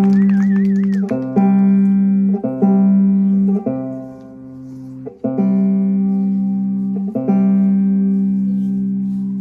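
Slow instrumental music of long, ringing notes that fade slowly, one new note or chord struck about every second or so, with no strumming rhythm.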